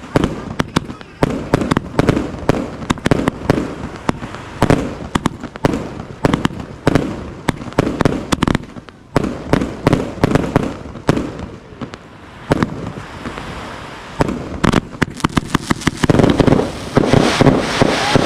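Multi-shot aerial fireworks barrage: rapid, overlapping shots and bursts, thinning out about twelve seconds in, then a dense flurry near the end.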